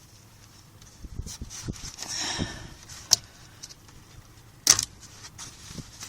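Scattered clicks and knocks of hand work on the brake light switch and plastic trim under a car's dashboard, with one sharp loud click a little before the end and some rustling.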